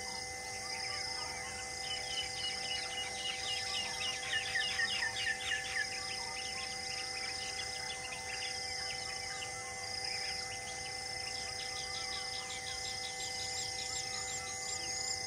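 Birds calling in quick series of short falling chirps, busiest about four to six seconds in, over insects chirring in regular high pulses.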